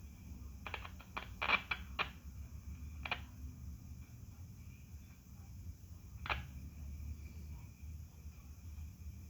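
Light clicks and taps of test probes and tools being handled against the tube radio chassis during voltage checks: a quick cluster of about six in the first two seconds, then single clicks near three and six seconds, over a low steady hum.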